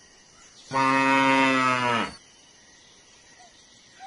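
A cow mooing: one long moo starting under a second in, its pitch dropping as it ends.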